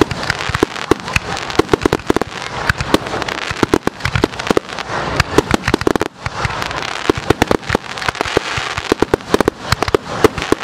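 Fireworks firing close by: a rapid, continuous string of sharp bangs and pops over steady crackling.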